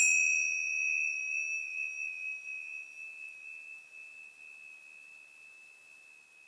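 A single struck metal chime, like a meditation bell, ringing out with one clear high tone and fainter upper overtones, slowly fading away.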